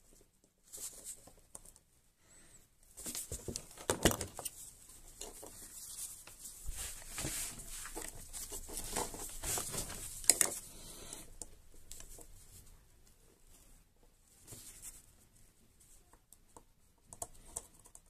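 Gloved hands handling multimeter test leads and probes: irregular rustling and scraping with a few sharper clicks and taps, loudest about four and ten seconds in, as the probes are set on a circuit board.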